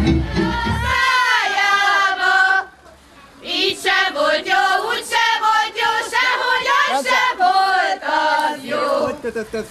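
Dance music with a heavy bass cuts off about a second in. A group of people then sings together, pausing briefly around three seconds in.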